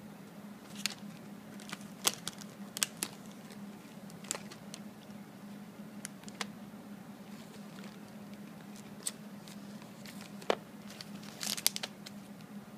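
Plastic biscuit tray and clear wrappers crinkling and clicking as fingers pick through a box of assorted chocolate biscuits, in scattered sharp clicks with a short flurry near the end. A steady low hum runs underneath.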